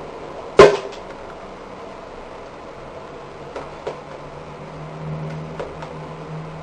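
A single sharp knock, then a few lighter clicks, over a steady low hum.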